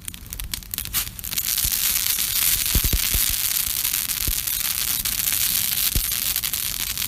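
Campfire crackling: scattered pops at first, then, about a second in, a dense, steady crackle as fresh fuel flares up, with a few low knocks.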